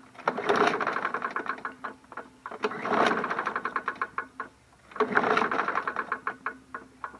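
Pull cord of an MTD Yard Machines 21-inch push mower yanked three times, each pull turning the engine over in a quick run of clattering strokes without it firing. A rattle comes from inside the engine even though it seems to have compression, and the owner takes it for a dead engine.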